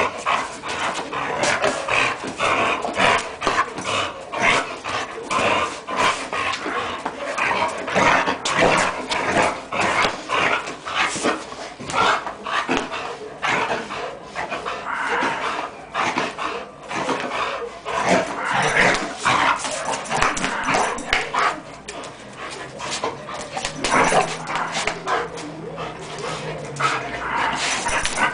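Cimarrón Uruguayo dog growling and barking in rapid, continuous bouts during attack-and-defence training.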